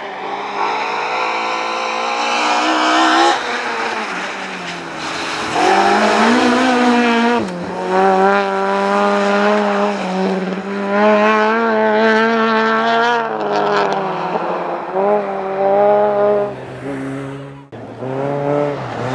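Rally car engine revving hard on snow, its pitch climbing and dropping again and again as the car is driven and the wheels spin. About three-quarters of the way in, the sound cuts off abruptly and another car's engine starts up.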